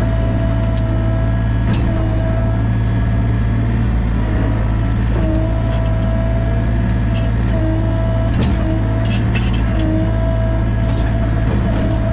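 Sany mini excavator running steadily under work, a deep engine hum throughout with a whining tone that rises and drops out every second or so and a few sharp knocks.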